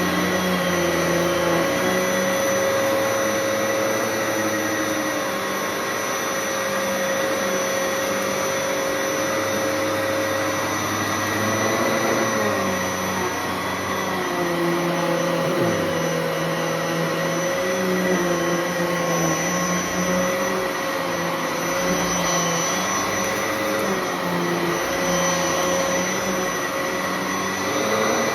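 Bissell Heavy Duty bagless upright vacuum running at full speed during a debris pickup test, with a steady high motor whine. Its lower hum wavers up and down as it is pushed over the floor.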